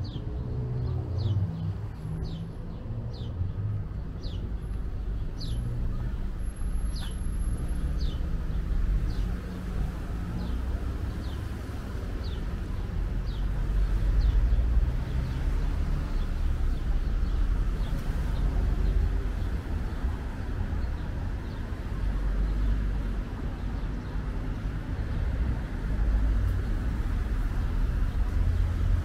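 Steady low traffic rumble along a town street, with a bird chirping over it, one to two short falling chirps a second, fading out about two-thirds of the way through.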